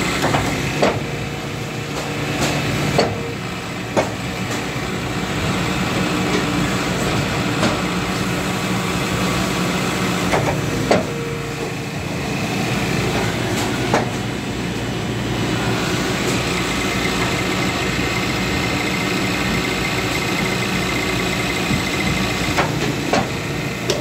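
Guillotine paper cutter running on its newly fitted replacement electric motor, belt-driving the flywheel with a steady mechanical hum. Sharp clicks and knocks come now and then, about half a dozen in all. This is a test of whether the motor can turn the flywheel.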